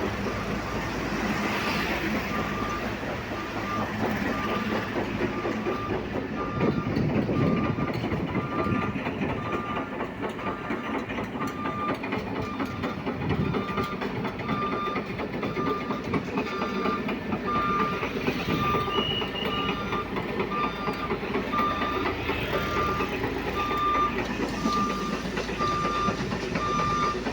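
A machine's reversing alarm beeping steadily at a single pitch, a little faster than once a second, over continuous engine and road-traffic noise.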